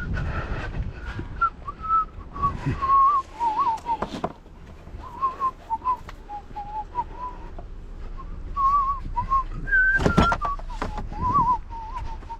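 A person whistling a wandering tune, interrupted by a few knocks and clatters of items being handled, the loudest about ten seconds in.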